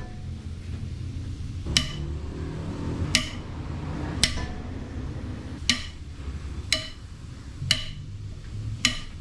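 Cylinder head bolts being broken loose with a long breaker bar and socket, worked in a crisscross order: seven sharp metallic cracks about a second apart as each bolt lets go.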